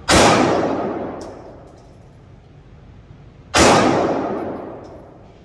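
Two shots from a Glock 48 9mm pistol, about three and a half seconds apart, each echoing and dying away over a second or so in an indoor range. A light metallic clink follows about a second after each shot.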